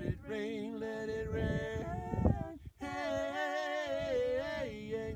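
A man and a woman singing long held notes together in harmony, over a strummed acoustic guitar, with a short break about two and a half seconds in.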